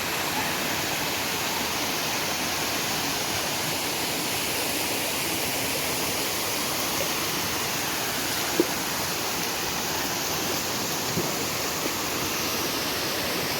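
Waterfall rushing: a steady, even roar of falling water, with one brief click about eight and a half seconds in.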